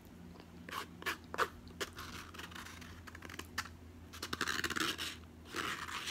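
Plastic spoon scraping and clicking against the inside of a takeout cup of red beans and rice, with chewing: a few sharp clicks in the first two seconds, then longer scratchy stretches.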